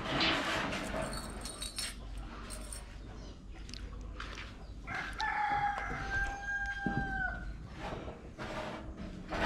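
A rooster crows once, about five seconds in: one long call of about two seconds that drops in pitch at the end. Scattered knocks are heard around it.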